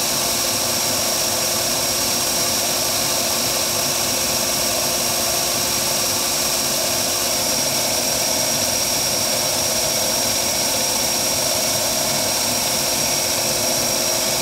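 Vertical belt sander running steadily while a small wooden block is held against the sanding belt to shape its profile: an even whir with a thin, constant high whine over it.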